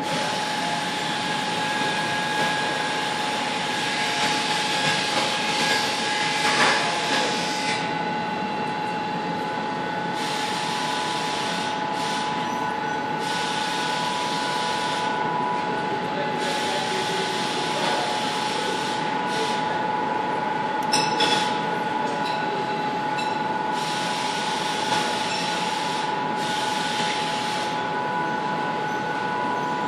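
Steady drone of industrial machinery running in a works, with a constant whine and a few sharp metallic clicks, one about seven seconds in and more around twenty-one seconds.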